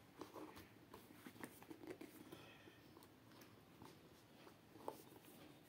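Near silence with faint scratches and small ticks of fingers prying at the flap of a small cardboard box, with one slightly louder tick near the end.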